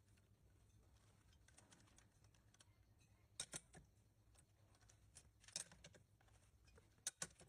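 Faint, scattered sharp clicks and taps, a few in quick pairs: the loudest about a third and two thirds of the way in, and a double click near the end, over a low steady hum.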